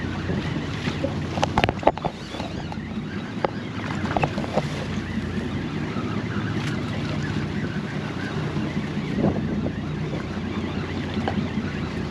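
Wind buffeting the microphone and water washing against a fishing boat's hull, over a steady low hum, with a few sharp clicks and knocks of tackle about one and a half to two seconds in.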